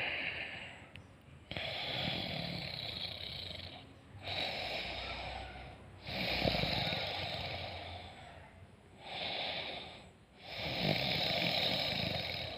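Person snoring: a slow series of hissing breaths in and out, each lasting one to three seconds, several with a low rasp.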